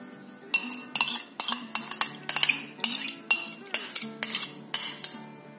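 A metal spoon clinking and scraping against the inside of a ceramic bowl, about three quick strokes a second, as the last of a milk mixture is scraped out. The strokes stop about five seconds in.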